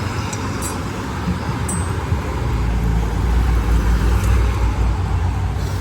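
Steady road traffic noise, with a low vehicle rumble that swells from about two seconds in. A few faint clicks sound over it.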